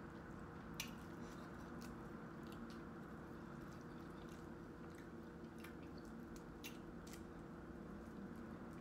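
Faint, scattered small clicks and wet squishes of a boiled shrimp's shell being cracked and peeled by hand, over a steady low hum.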